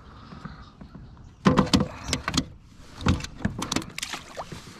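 Knocks and clatter as a bass is handled on a plastic measuring board in a kayak, in quick bursts for about three seconds. It ends with the fish thrown back into the lake.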